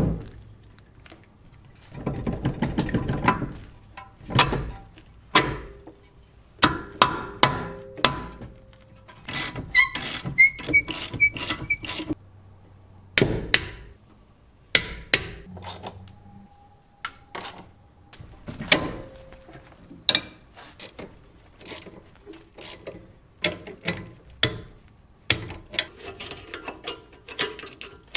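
Metal hand tools worked on a car's front steering during an inner tie rod replacement: a string of sharp, irregular clanks and knocks, some ringing briefly, with a rapid rattle about two seconds in.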